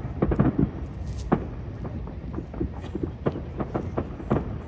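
Many fireworks going off at a distance: a fast, irregular string of bangs and pops over a low rumble, densest at the start and about a second in.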